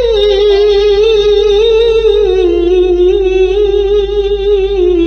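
A single voice reciting the Quran in melodic tilawah style, holding one long ornamented note that steps down in pitch in a few stages and wavers in small trills.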